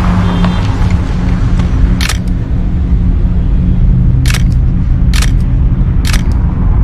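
A DSLR camera's shutter firing four times, once about two seconds in and then three more in quicker succession, over a steady low rumble.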